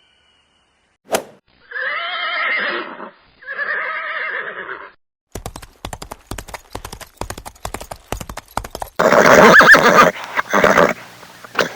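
Two drawn-out animal calls, then a quick run of horse hoofbeats clip-clopping from about five seconds in. Near the end comes a loud horse whinny.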